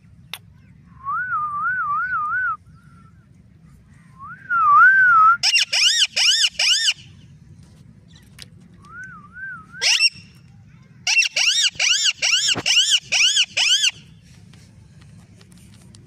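Albino Indian ringneck parakeet calling in two runs of harsh, screechy notes, about three or four a second. Short, clean warbling whistle phrases wavering up and down come before and between them.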